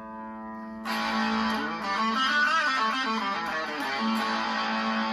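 Electric guitar played through a Dark Realm fuzz and a Purple King dual drive stacked together, giving a distorted tone: a chord rings out, then a new strum comes about a second in, followed by a short run of notes that rings on.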